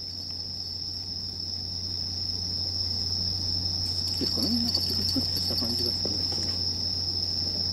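Night insects trilling in one unbroken high-pitched drone, over a steady low hum.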